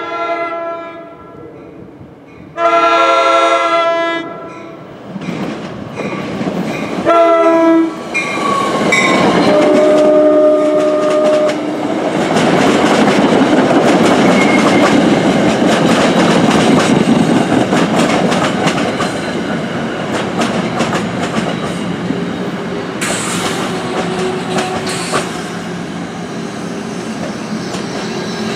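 NJ Transit push-pull commuter train sounding its multi-tone horn in a long, long, short, long pattern as it approaches; the last blast drops in pitch as it goes by. The train then rolls past close up with a steady rumble and wheels clicking over the rail joints, with two brief high screeches about three-quarters of the way through.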